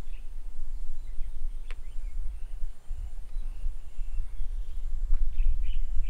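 Low, fluctuating wind rumble on the microphone, with a few faint bird chirps: one at the start, a quick sweep just under two seconds in, and a short cluster near the end.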